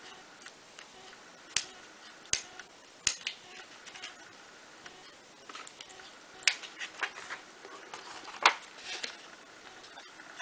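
Fine pointed parchment-craft scissors snipping through perforated parchment paper: short, sharp clicks at irregular intervals, a few close together, the loudest about two-thirds of the way through.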